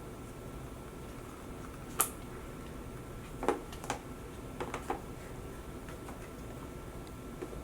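Packaging and a laptop charger being handled: a sharp click about two seconds in, then a few softer taps and rustles, over a steady low room hum.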